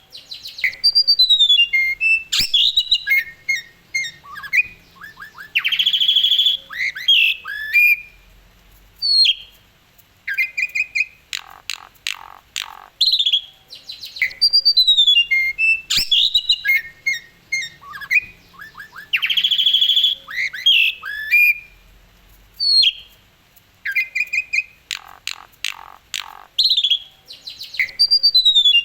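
Asian pied starling (jalak suren) singing a varied song of whistles, fast trills and harsh chattering notes in short phrases with brief pauses. The same run of phrases comes round again about halfway through.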